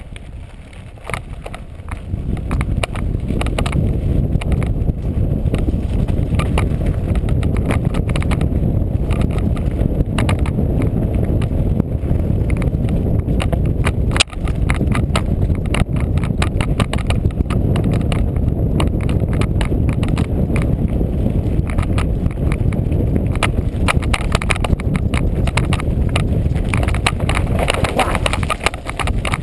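Mountain bike ride down a loose gravel singletrack: a steady low rumble of tyres and air on the camera that builds over the first couple of seconds as speed picks up, with constant rattling and clatter from the bike over the stones and many sharp clicks, one loud knock about halfway through.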